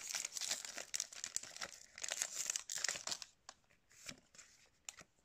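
Foil Pokémon booster pack wrapper crinkling and tearing as it is opened, dense for about three seconds, then a few faint clicks as the cards are handled.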